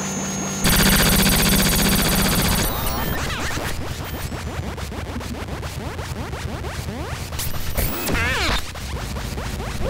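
Benjolin and Fourses analog synthesizers patched together and played live. A dense buzzing cluster of tones over a low hum comes in suddenly under a second in, gives way about three seconds in to a rapid stream of clicks with sliding pitches, and a warbling chirp rises and falls near the end.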